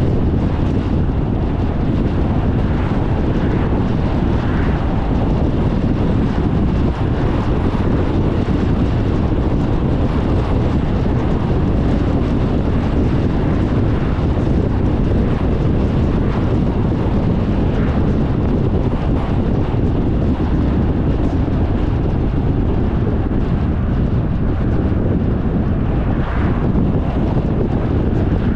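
Steady road and wind noise from a car driving at speed on asphalt, with a few brief swells as oncoming cars pass.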